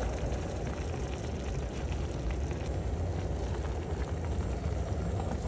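Wind buffeting the microphone, a steady low rumble with faint clicks over it.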